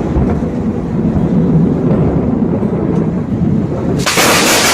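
Thunder rumbling low and loud, then a sudden sharp crack about four seconds in, as of a close lightning strike.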